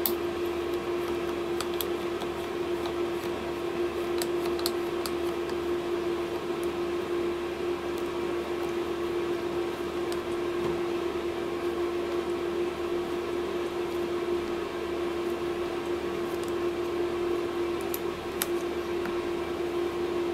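A steady single-pitched hum runs throughout, with a few faint small clicks of metal parts as a collet clamping nut is threaded by hand onto a stud-weld head's stud holder.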